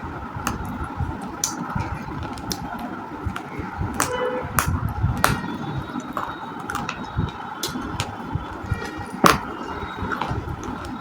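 Close-up chewing and crunching of baked clay pieces: irregular sharp crunches and snaps over steady background noise, the loudest a little past nine seconds in.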